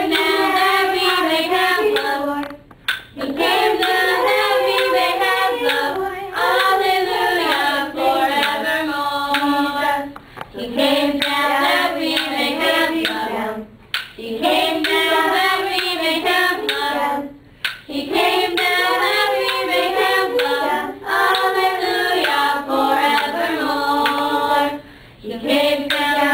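A group of young girls singing together, unaccompanied, in sung phrases a few seconds long with short breaks between them.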